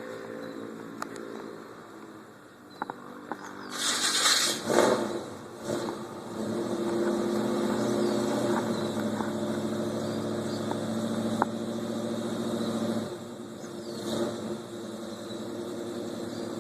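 A hard-starting Chevrolet El Camino's engine fires and catches about four seconds in with a loud burst of revving. It then runs at a steady fast idle that drops to a lower, quieter idle about thirteen seconds in.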